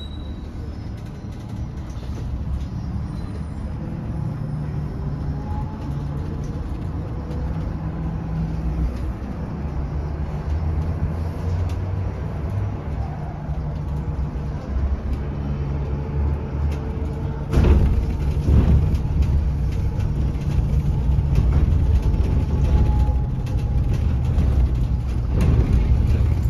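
Higer KLQ6126GEV electric city bus under way, heard from inside: a low road and tyre rumble with a faint whine that rises and falls. About two-thirds of the way through it turns suddenly louder, with knocks and rattles.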